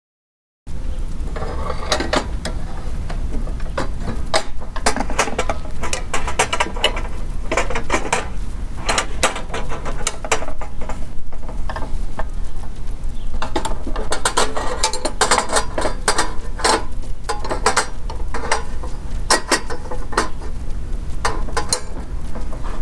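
Steel wrenches and saw parts clinking and scraping as the table saw's blade, washer and arbor nut are fitted and tightened by hand, in irregular clusters of sharp clicks over a low steady rumble.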